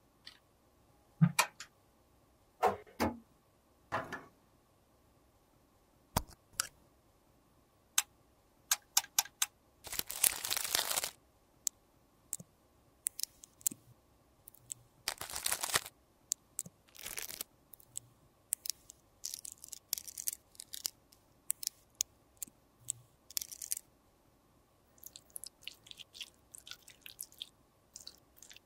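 Close-miked handling of makeup products and tools: scattered sharp clicks and taps, a few longer, noisier strokes of about a second each around ten, fifteen and seventeen seconds in, and a run of faint quick ticks near the end.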